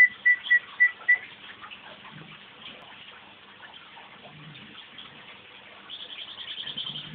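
A short run of evenly spaced whistled notes at one pitch, ending about a second in, then a pet canary breaking into a fast, high trill near the end.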